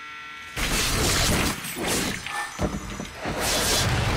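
Window glass shattering and crashing, starting suddenly about half a second in and going on as several loud crashes one after another.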